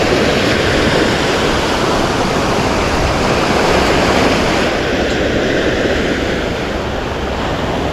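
Sea surf washing on the shore in a steady, loud rush, mixed with wind buffeting the microphone.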